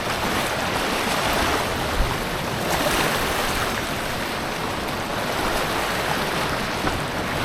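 Steady rush of moving water, with a brief thump about two seconds in.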